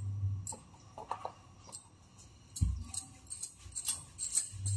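Bangles on the wrists jingling in quick, irregular chinks as a wooden rolling pin rolls out paratha dough on a stone board, with one dull thump about halfway through.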